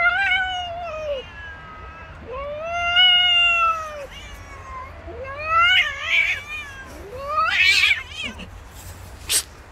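Domestic cats yowling in a fight: two long, drawn-out wails that rise and fall in pitch, then shorter, harsher, broken cries as the scuffle breaks out. A short sharp noise comes near the end.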